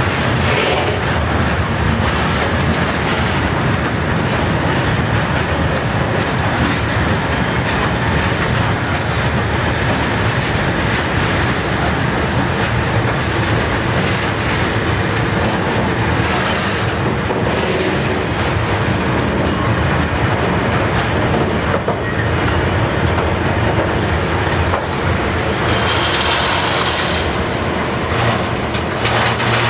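Freight train of tank wagons rolling past close by: steady loud rumble of steel wheels on rails with clickety-clack over the rail joints. In the second half a second freight train, hauled by a PKP ET22 electric locomotive, comes along the adjacent track, with a few brief hissy surges near the end.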